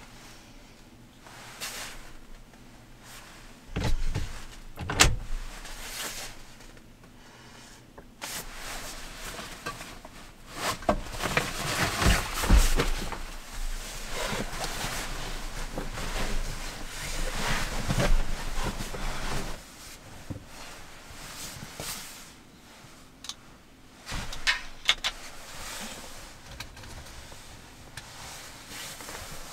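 Rustling of fabric and bedding, a sleeping bag and padded jacket, as someone settles in to sleep, with a couple of sharp knocks about four and five seconds in. There is a long stretch of heavier rustling in the middle and lighter scattered clicks and handling near the end.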